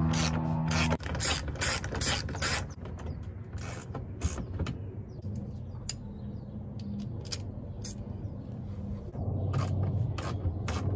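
Hand ratchet wrench clicking in quick runs as the bolts holding a car seat's floor rails are worked loose, with scattered single clicks and knocks between the runs.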